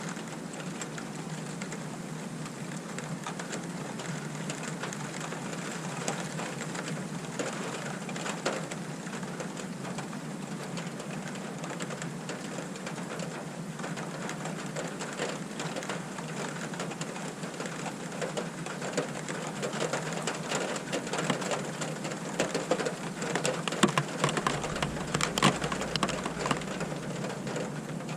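Steady rain, many fine drops pattering on a surface, heavier and louder in the last third before easing just before the end. There is a faint low rumble near the end.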